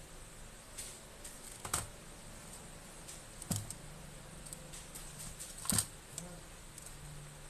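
Scattered light clicks and three sharper knocks, the loudest about three-quarters of the way through, as a MacBook Pro logic board is lifted out of its aluminium top case and the case is handled.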